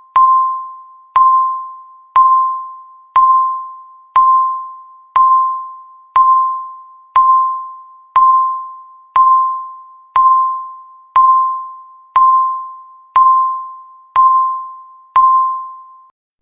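Electronic countdown-timer beep sounding once every second, each one tick of the seconds left. It is a single high tone with a sharp start that fades out before the next, repeated sixteen times.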